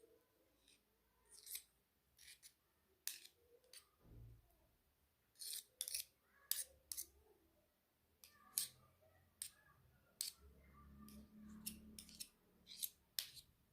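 Spoon clicking and scraping against the container and bowl while a tablespoon of beldi black soap is scooped out: a quiet, irregular string of short, sharp clicks.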